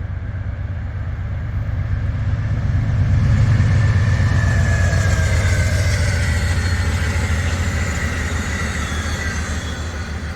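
O gauge model train rolling past on its track: a steady rumble with fast rhythmic wheel clatter and a motor whine, growing louder to a peak about four seconds in, then slowly fading as it moves away.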